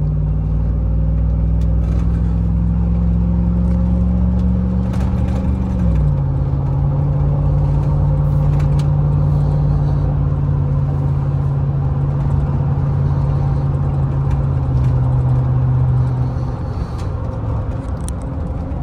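A 2006 Chevy Silverado's freshly installed 5.3L V8 pulling the truck along the road, running without knocking. Its note drops in pitch about six seconds in as the transmission shifts up, then holds steady and gets quieter near the end as the throttle eases off.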